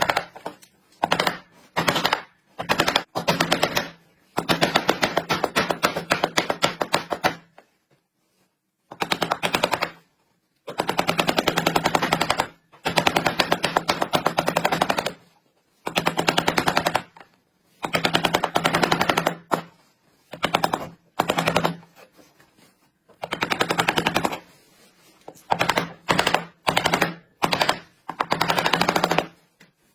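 A power tool hammering rapidly against wood in bursts of one to three seconds, stopping and starting again many times, with a steady low hum from its motor while it runs.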